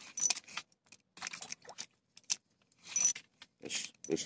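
A hooked tilapia thrashing at the water's surface while being played on the line: a series of irregular splashes.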